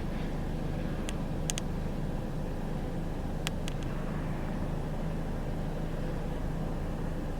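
Steady low rumble of a motor vehicle's engine and road noise, with a few brief sharp clicks about a second in and again past the three-second mark.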